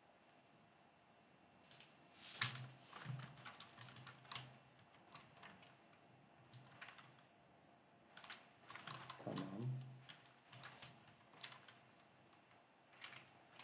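Computer keyboard keystrokes, tapped irregularly in short runs with pauses, starting about two seconds in, as code is edited.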